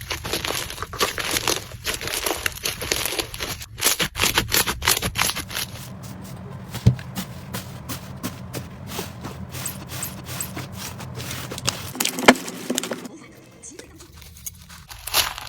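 Slime being squeezed and worked by hand, giving dense crackling and popping clicks. The clicking thins out about six seconds in, leaving a steady low hum under scattered clicks, and picks up again near the end.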